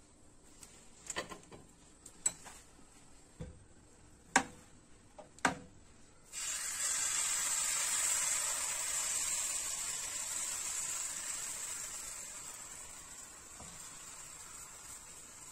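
A few sharp knocks of kitchen utensils. About six seconds in, crêpe batter is poured onto the hot nonstick pan and starts sizzling at once; the sizzle is loudest just after the pour and slowly dies down as the batter sets.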